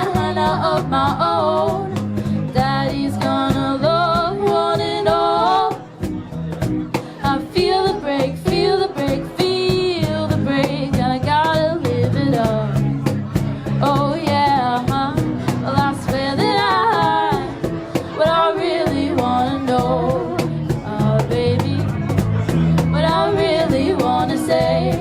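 Live rock band playing, with drums, guitar and a wavering melodic lead line over the beat.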